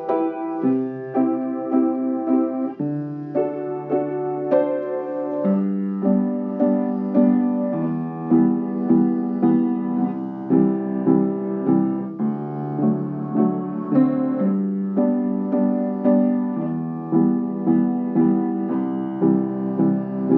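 Slow piano soundtrack playing a standard pop chord progression in G, with the chords changing every two to three seconds.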